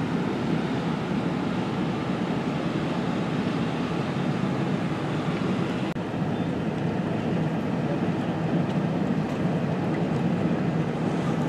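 Steady rumble of road and wind noise heard from inside a moving car, with a brief dropout about six seconds in.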